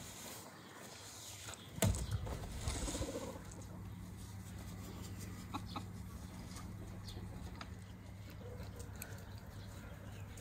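Chickens clucking in the background, with one sharp knock about two seconds in and a steady low hum underneath.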